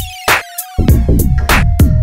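Electronic background music with a drum-machine beat and a held synth note.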